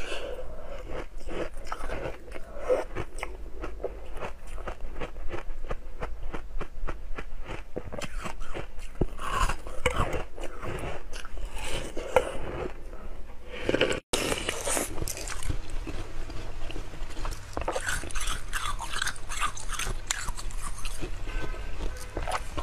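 Close-up biting and chewing of a block of frozen milk ice: rapid, dense crunching and cracking. About two-thirds in, the sound drops out for an instant, and crunching resumes on a clear block of ice, with more high-pitched crackle.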